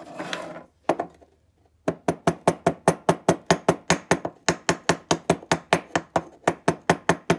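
Light, quick taps on a seized piston ring in a Yamaha TT-R125 piston, about five a second with a couple of short pauses, to break the carbon-stuck ring free of its groove. A brief handling noise and a single knock come first.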